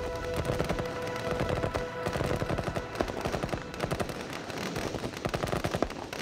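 Machine-gun fire in rapid continuous bursts, a battle sound effect of massed First World War machine guns. Under it, a held musical chord fades out about two seconds in.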